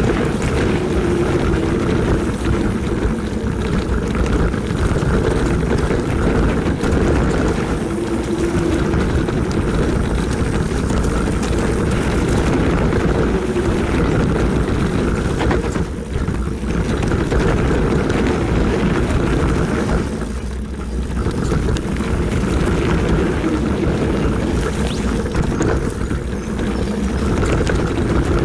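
Wind buffeting the on-bike camera's microphone, mixed with the rolling noise of a Rocky Mountain Altitude mountain bike descending a dirt singletrack: a loud, steady rush that eases briefly twice.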